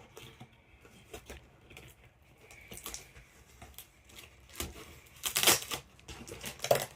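Handling of a doll and its packaging: scattered small clicks and taps, with a louder rustle of packing material about five seconds in.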